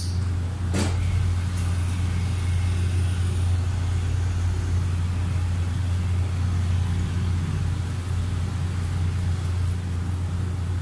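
A steady low hum, with two sharp clicks in the first second.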